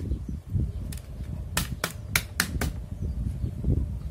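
Plastic casing of an electric mosquito racket being fitted back together by hand: a quick run of five sharp clicks about a second and a half in, over low handling bumps.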